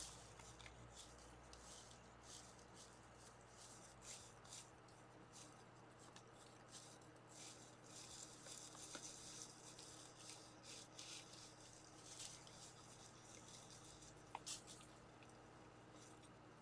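Faint, irregular crunching and rustling of deer feeding and moving in dry leaf litter.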